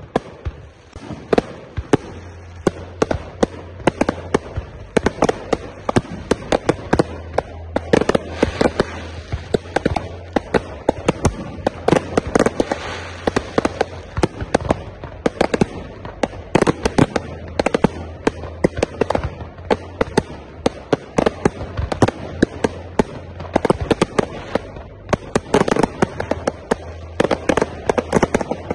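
Aerial fireworks display: a rapid, unbroken barrage of shell bursts and bangs, several a second, with crackling between them.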